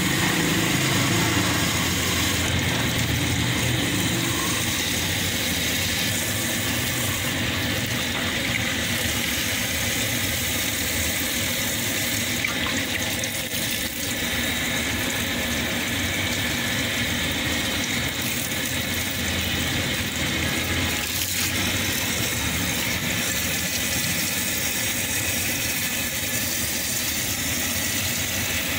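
Hose water gushing steadily through a Suzuki Wagon R's removed catalytic converter and splashing onto a concrete floor, flushing out the carbon that had fully blocked it. A steady low hum runs underneath.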